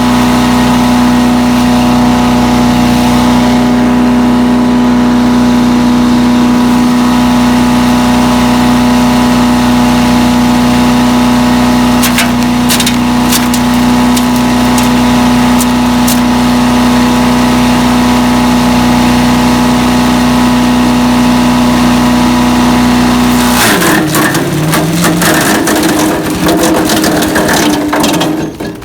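Landworks 7 hp wood chipper shredder's gas engine running steadily at speed, with a few sharp cracks of wood being chipped about halfway through. About 24 seconds in, the engine pitch drops under load and a dense crunching and cracking sets in as material goes through the chipper. The sound falls away abruptly near the end.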